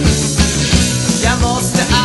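Rock music: a full band playing with a steady beat, and a voice singing a line near the end.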